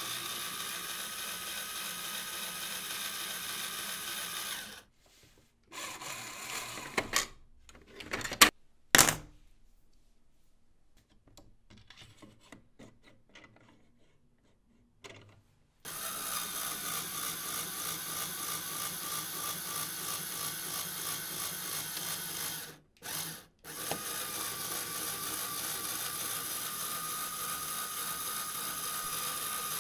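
LEGO electric motor driving the gear train of a LEGO Technic wire bender, running with a steady whine and a fast, even gear ripple as the turntable bends the wire. The motor stops after about four seconds. A few sharp clicks and knocks come during a quiet stretch, then the motor runs again from about halfway, with one brief stop.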